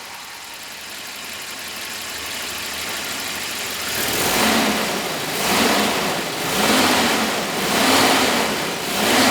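Volvo 240 heater blower fan running as a whooshing noise that grows louder over the first few seconds. From about four seconds in it swells and fades about once a second.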